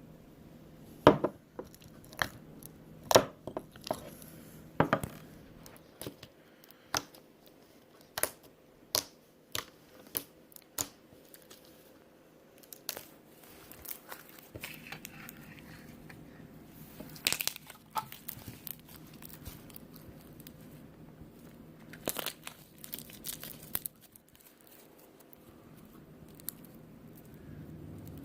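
Slime being squeezed and stretched by hand, giving irregular sharp pops and crackles, with a few clusters of quick crackling later on.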